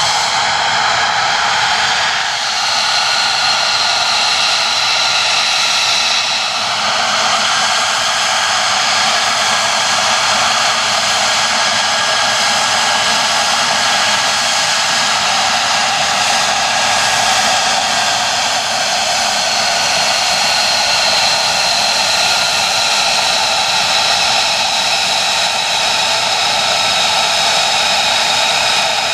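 Lockheed Martin F-35A Lightning II's single Pratt & Whitney F135 turbofan running on the ground: a loud, steady jet rush with several high whining tones that shift in pitch about two and six seconds in.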